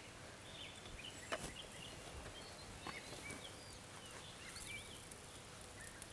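Faint outdoor background with small birds chirping here and there, and a single sharp click about a second and a half in.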